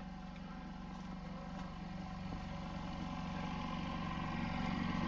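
Small portable generator engine running steadily at constant speed, growing gradually louder.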